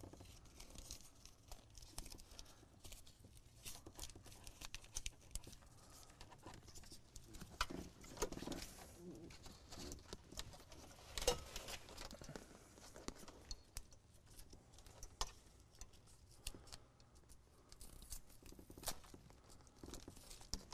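Faint rustling and scattered small clicks of thin electrical wires being handled, tied together and pulled through the dashboard, with one sharper click about 11 seconds in.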